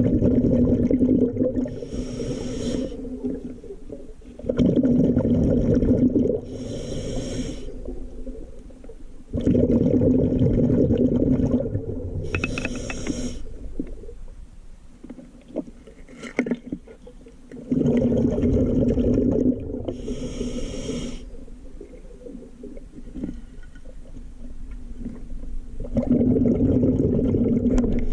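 Scuba diver breathing through a regulator underwater: a loud rumble of exhaled bubbles lasting about two seconds, then a short hissing inhale, repeating about every eight seconds, five breaths in all.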